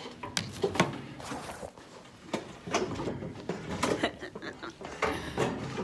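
Handling noise from a phone camera being picked up and moved: irregular knocks and rubs on the microphone, with faint voices.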